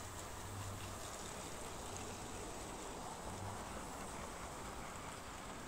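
Hornby model of the Flying Scotsman running along its track: a low electric motor hum that swells a few times over a steady whirr of wheels on the rails.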